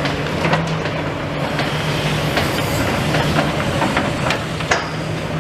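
Demolition machinery at work: an engine running with a steady low hum under a clatter of knocking metal and rubble, with a sharper bang near the end.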